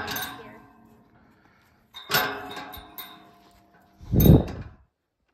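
Two metallic clanks on a steel pipe panel, about two seconds apart, each ringing on for a second or two. About four seconds in, a loud low thump hits the microphone, as from the phone being knocked or handled.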